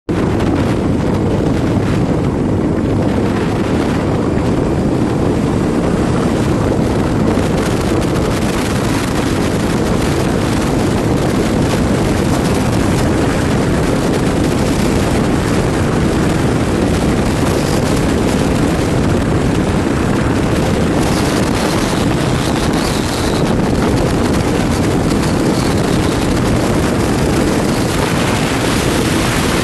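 Steady rush of wind on the microphone of a moving Tufan Istiqlal 250 motorcycle, with its engine running underneath.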